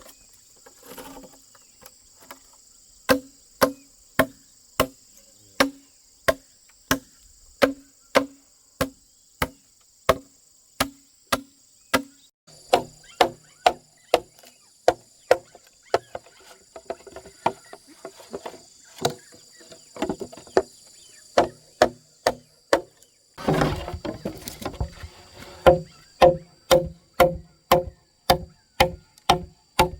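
Repeated chopping blows on wood, about two a second and quickening later, each with a short hollow ring. Insects keep up a steady high buzz behind the blows. A brief noisy rush breaks in about three-quarters of the way through.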